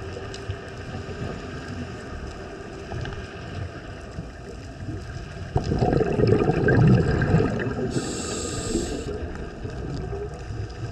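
A scuba diver breathing through a regulator, heard underwater: a loud rush of exhaled bubbles about halfway through, then a short hiss of an inhalation about two seconds later, over a low steady underwater rumble.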